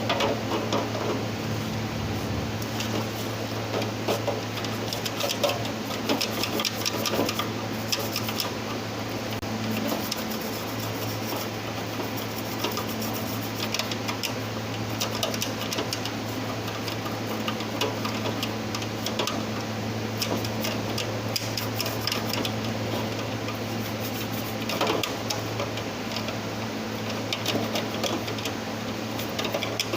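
A steady low hum with many small irregular clicks and scrapes over it.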